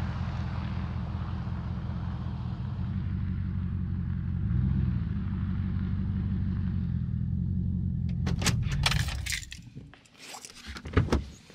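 Pickup truck engine running steadily, its pitch shifting briefly about halfway, then switched off about nine seconds in. Sharp clicks and knocks come just before and after the engine stops.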